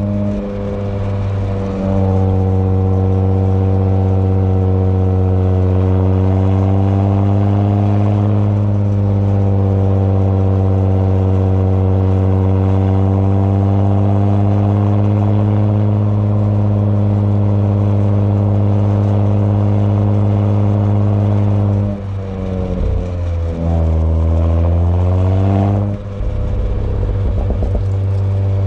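Audi B9 S4's turbocharged 3.0-litre V6 and exhaust droning steadily under way, its pitch drifting slowly. About three-quarters of the way through the sound drops, then dips and climbs back in pitch, and a brief patch of rapid crackle follows near the end.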